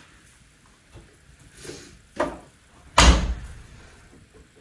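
Front-loading washing machine door pushed shut, latching with one loud thud about three seconds in, after two lighter clunks.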